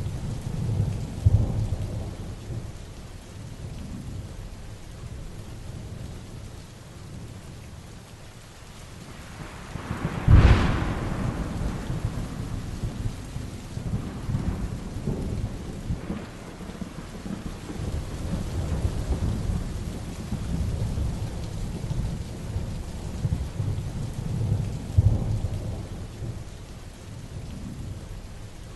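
Heavy rain falling steadily with thunder rumbling low throughout. About ten seconds in, a sharp, close thunderclap cracks out, then trails off into a long rumble.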